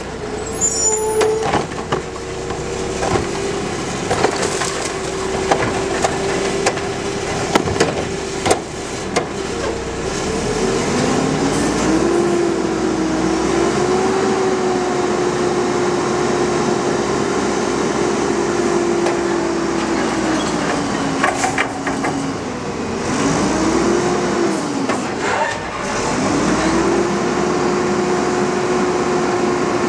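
Diesel engine of a Mack front-loader garbage truck revved up to drive the hydraulics, its pitch rising and falling several times as the forks lift the Curotto carry can over the cab and tip it into the hopper. Sharp metal knocks and clanks come through the first several seconds and again a little past two-thirds of the way in.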